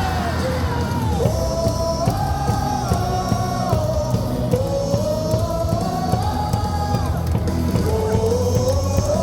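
Baseball stadium cheer music over the loudspeakers with a sung melody of held, sliding notes and a steady low beat, and fans yelling along.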